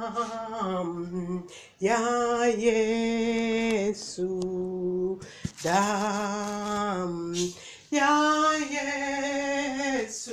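A woman singing a Swahili worship song in long held notes, four drawn-out phrases with short breaks between them.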